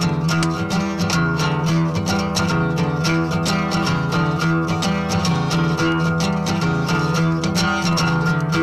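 Acoustic guitar strummed in a steady, even rhythm, the chords ringing continuously.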